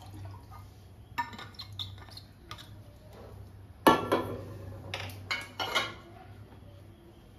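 Steel kitchenware clinking and clattering while tea is being made: a few light clinks in the first couple of seconds, a sharp knock about four seconds in, then a little more clatter.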